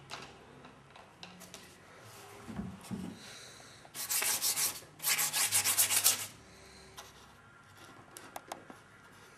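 Brisk scrubbing strokes rubbed across a surface, in two loud bursts about four and five seconds in, the second a run of quick short strokes lasting about a second.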